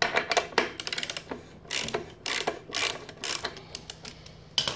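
Socket ratchet clicking as it undoes the spark plug of a 1959 Victa 18 two-stroke mower engine: a rapid run of clicks, then about five short bursts of clicking on the back-strokes.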